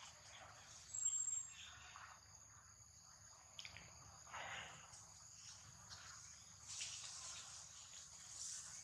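Faint outdoor ambience of a steady, high insect chorus, with a brief high whistle about a second in.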